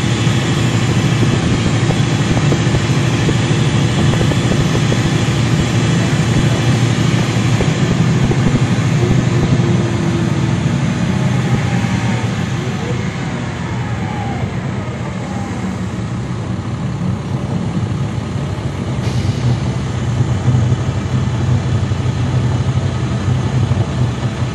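2009 NABI 40-SFW transit bus's Caterpillar C13 ACERT diesel engine, with its ZF Ecomat six-speed automatic, running under way, heard from aboard the bus: a steady, loud low drone. It eases off around the middle and builds again near the end, with a single click about three quarters of the way through.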